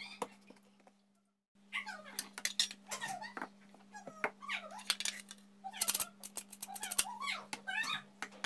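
Repeated high, wavering cries from a pet animal, over a steady low hum, with clicks and taps of plastic containers being handled. The sound cuts out completely for a moment about a second in.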